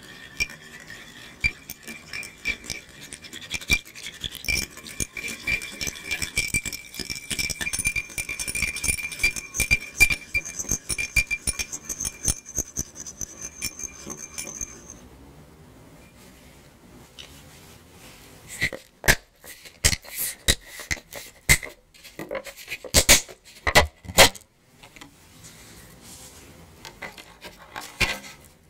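A small wire whisk stirring gelatine powder into hot water in a ceramic ramekin, its wires rattling rapidly against the dish for about fifteen seconds. After a short lull comes a run of separate sharp knocks and clinks.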